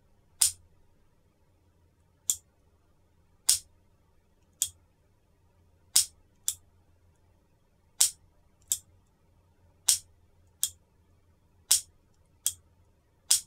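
The exposed double-action lock of an Allen & Thurber pepperbox being cycled by repeated trigger pulls, giving sharp metallic clicks. They come in pairs, a loud snap and then a softer click, with a pair about every two seconds, seven times over.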